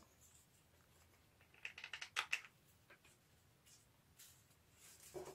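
Paper strips and craft pieces being handled on a tabletop: mostly quiet, with a short cluster of light clicks and rustles about two seconds in.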